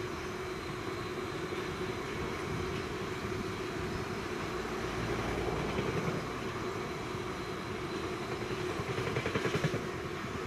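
A freight train's bogie tank wagons rolling past, their wheels rumbling and clattering on the rails. The noise swells as the last wagons go by near the end, then begins to fade.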